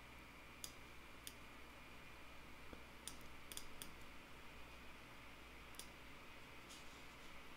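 Several faint, scattered mouse clicks over quiet room hum.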